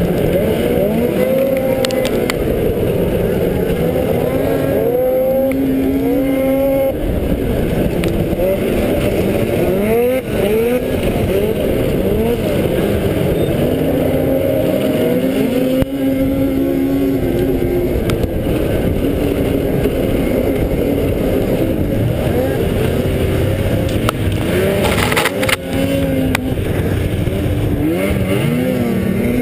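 Race snowmobile engine at full racing throttle, its pitch climbing and dropping again and again as it is revved up and backed off through the turns, over a steady rush of wind noise.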